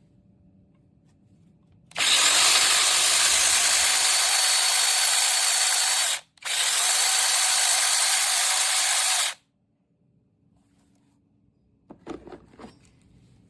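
Cordless 6-inch 21V electric mini chainsaw running at full speed for about four seconds, stopping for a moment, then running again for about three seconds before cutting off. A few small clicks and knocks follow near the end.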